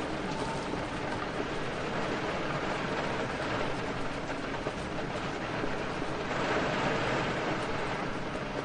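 Steady heavy rain with wind, a continuous dense hiss that swells briefly about six seconds in.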